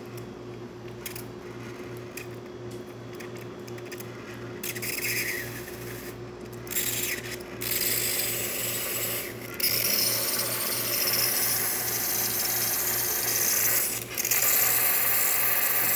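Breville Barista Express steam wand venting: a few short spurts of hiss as it starts, then a continuous strong hiss of steam from about halfway in. The hiss grows louder about ten seconds in and dips briefly just before the end. A strong, steady flow like this is the sign of good steam pressure.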